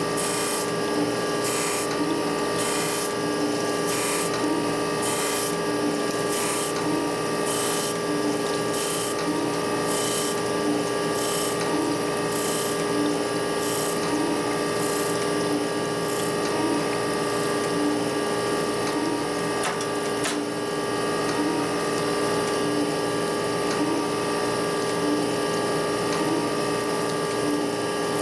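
Surface grinder running, its wheel grinding a hardened tool-steel cam follower under a flood of coolant: short hissing bursts about once a second each time the part passes under the wheel, over the machine's steady hum. The grinding bursts are strong at first and grow fainter later on.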